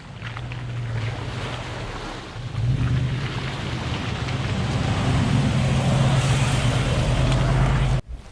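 V8 Toyota 4Runner driving, its engine drone mixed with tyre and wind noise. It gets louder about two and a half seconds in and stays steady, then cuts off suddenly near the end.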